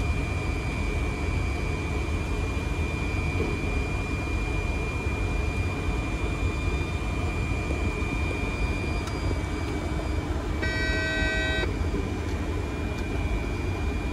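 Steady in-flight cockpit noise of a Fokker 100 airliner: a constant rush and low rumble with a thin steady high whine. About ten and a half seconds in, a short electronic tone of about a second sounds.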